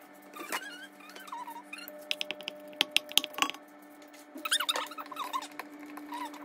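Wooden spoon tapping and scraping against an enamel-lined Dutch oven while breaking up raw Italian sausage, with a quick run of sharp taps in the middle. A steady low hum runs underneath.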